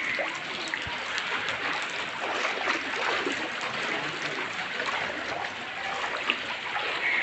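Floodwater running along a street after heavy rain, a steady rush of water with small splashes and drips.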